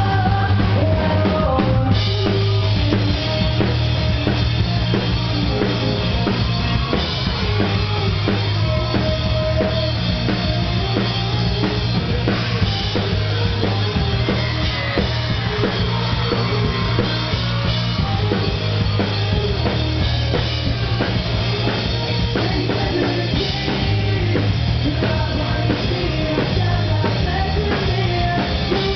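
Pop-punk band playing live at full volume, with the drum kit prominent, heard from beside the stage.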